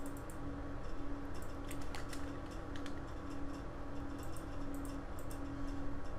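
Scattered, irregular clicks of a computer mouse working through on-screen dialogs, over a steady hum.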